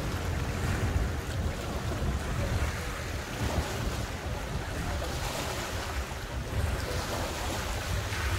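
Lakeside boat-ramp ambience: wind rumbling on the microphone over water lapping against the dock and boats, with boat motors running in the background.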